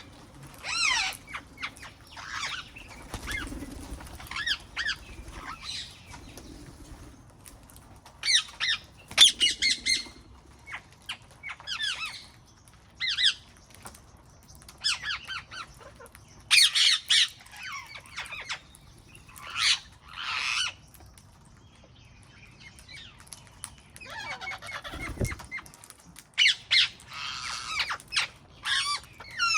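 Wild parrots calling: repeated harsh squawks and screeches in short, irregular bursts, sometimes several birds at once, with a brief lull about three-quarters of the way through.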